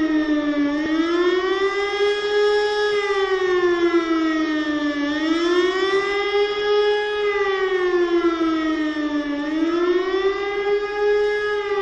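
A siren wailing: one loud tone that rises, holds and falls again in a steady cycle of about four and a half seconds, repeating through.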